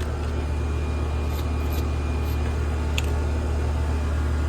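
Air conditioner outdoor condensing unit running steadily, its compressor and condenser fan giving a low, even hum, with a few faint clicks about one and a half and three seconds in.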